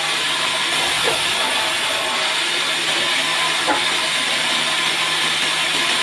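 Vertical band saw running steadily while slabs of bark-covered wood are fed through its blade, giving a continuous hiss over a low motor hum. A couple of light knocks from the wood being handled come about one second and nearly four seconds in.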